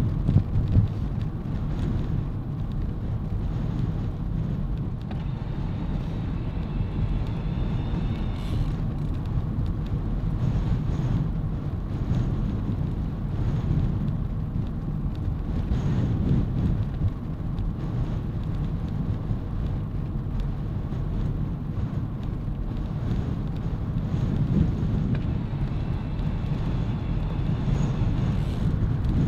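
Steady low rumble of wind buffeting the microphone, mixed with the hiss of tyres rolling on tarmac as the camera moves along the road.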